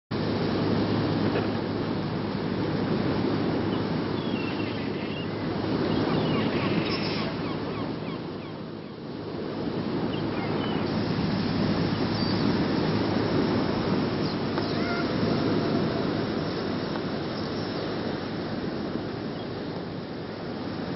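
Wind buffeting a camcorder microphone: a steady, uneven rumble that dips briefly about nine seconds in, with a few faint high chirps over it.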